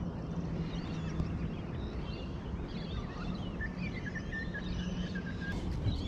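Minn Kota electric trolling motor humming steadily, with birds chirping and whistling in the background.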